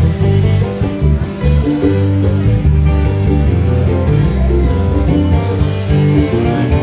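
Bluegrass string band playing live: fiddle, mandolin and acoustic guitar over an electric bass guitar line.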